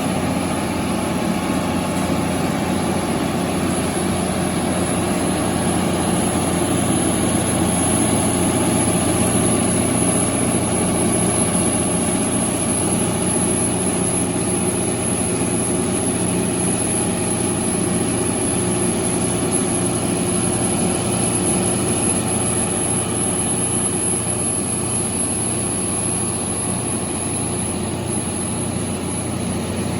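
Kohler 275 kW generator set's Volvo diesel engine running at a steady speed, with a thin, constant high whine above the engine hum.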